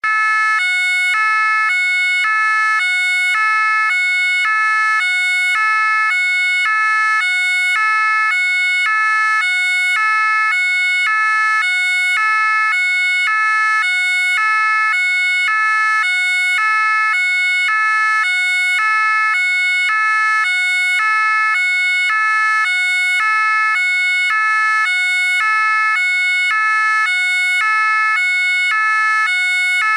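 French gendarmerie two-tone siren, alternating steadily between a high and a low note, each held about half a second.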